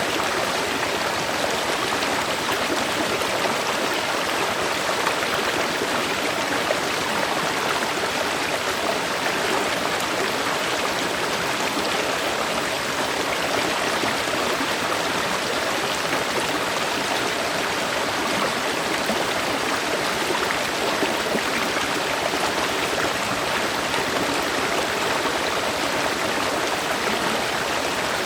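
Steady, unbroken rush of a flowing river.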